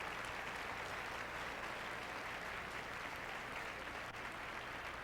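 Concert hall audience applauding steadily, an even patter of many hands clapping.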